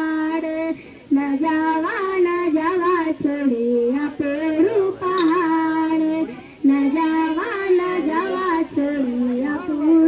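A young girl singing solo into a microphone, one voice holding long notes with short breaths between phrases. A single brief click about halfway through.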